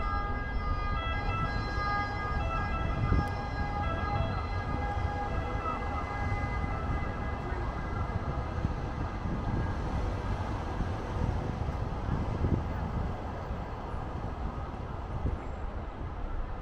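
An emergency-vehicle siren sounding in steady, alternating tones over low street traffic rumble, fading out about six seconds in; the traffic rumble continues.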